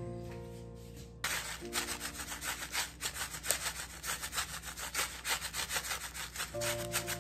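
A hand sesame grinder being twisted over the bowl, rapid dry rasping with many scrapes a second as sesame seeds are ground into gyoza filling. Soft piano music plays at the start and comes back near the end.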